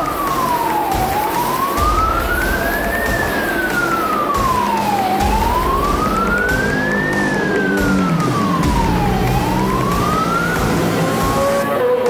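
A wailing siren sweeping slowly up and down in pitch, about two seconds rising and two falling, stopping shortly before the end, over background music with a low beat.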